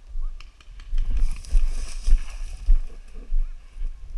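Footsteps on sandy ground with low thumps about twice a second, and dry brush rustling and scraping against the player's gear for about a second and a half in the middle.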